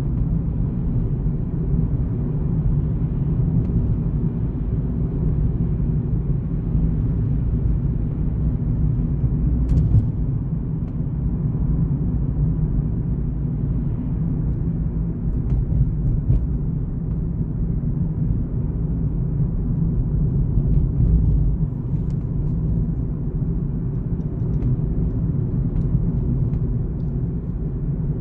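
A car driving on a paved road, a steady low rumble of tyre and engine noise, with a faint tick about ten seconds in.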